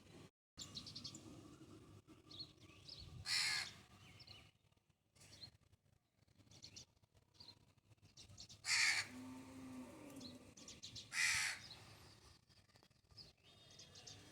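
A bird calling loudly three times, each call short, with faint high chirps from smaller birds in between.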